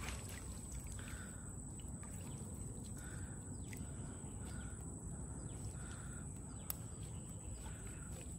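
Faint rural outdoor ambience: a low steady rumble under a thin high steady tone, with several soft, short distant animal calls, most likely birds, spread through it.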